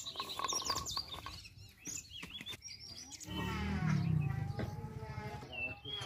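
Small birds chirping in quick high twitters, then a long, low call from a farm animal, like cattle lowing, starting about three seconds in and the loudest sound here.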